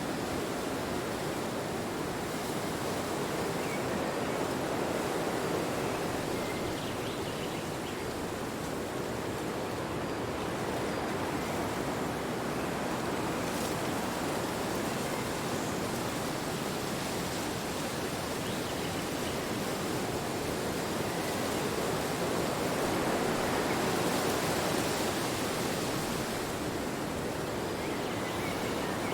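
Wind blowing steadily, swelling into slow gusts about five seconds in and again near the end.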